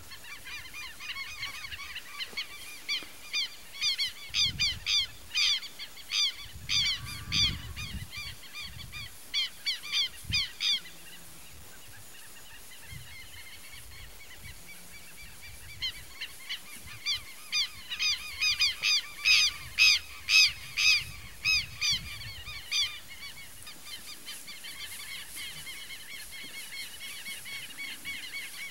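Birds calling in two long bouts of rapid, repeated harsh honking notes, one in the first ten seconds or so and a louder one after a lull of about five seconds.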